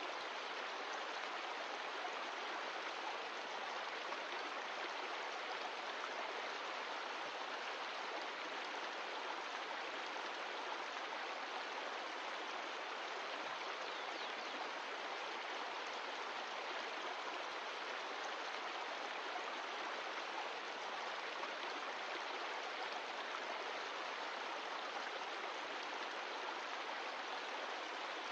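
Glacial meltwater mountain stream flowing, a steady, unbroken rush of water.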